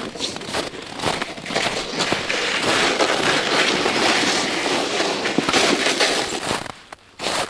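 Dense crackling and crunching handling noise, many small clicks close together, building about a second in and dropping away shortly before the end, with one short burst just after.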